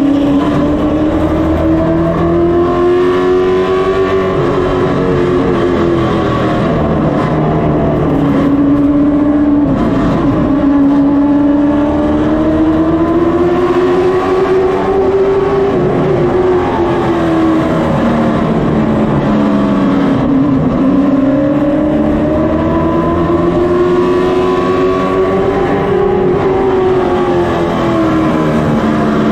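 A race car's engine heard from on board, running hard with its pitch climbing and then falling in long swells that repeat about every ten seconds as the car laps the oval.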